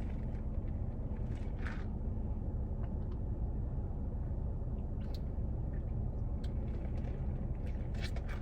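Steady low rumble of an idling car, with a few faint light clicks.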